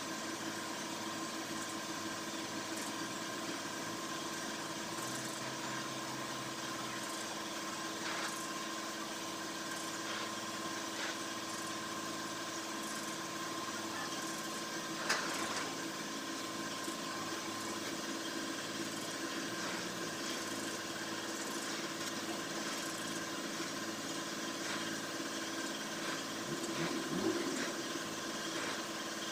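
Gas brazing torch flame hissing steadily on a radiator tank during brass brazing, with a steady hum underneath and a few light clicks.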